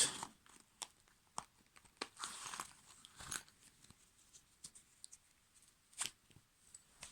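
Faint rustling and scattered clicks of small items being handled and pulled out of a wallet.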